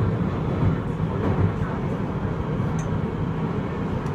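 Beijing Subway SFM05 metro train running, heard from inside the car: a steady low rumble of wheels and traction motors.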